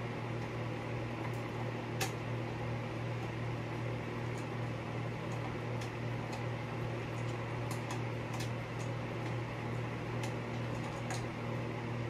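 A steady low mechanical hum, like an appliance or air conditioner running in a small room, with a few faint light clicks of metal as the screws holding a ceiling fan blade are worked loose; the sharpest click comes about two seconds in.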